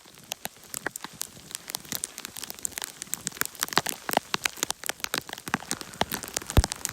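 Ice pellets (sleet) striking the recording device and nearby surfaces, a dense irregular ticking of many small sharp clicks.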